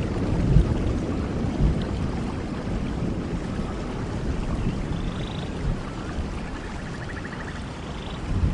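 Steady rain falling on leaves and the forest floor, with a low uneven rumble underneath. A few faint short high calls come through in the second half.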